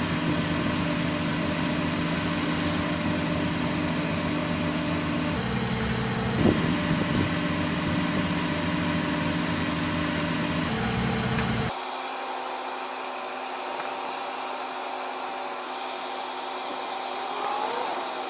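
Idling truck engine, a steady hum that shifts slightly twice and cuts off abruptly about twelve seconds in, leaving a steady hiss.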